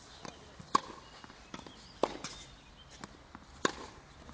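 Tennis ball struck hard by a racket three times, about one and a half seconds apart, in a practice rally, with fainter knocks between the hits.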